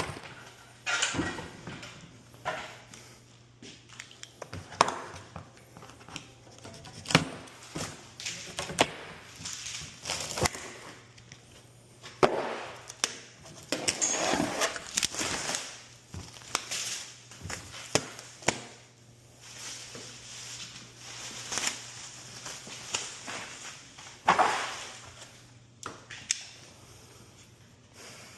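Irregular work noise from an HVAC installation: scattered knocks, clicks and clanks of parts and tools being handled, with a few longer scraping or rustling stretches between them.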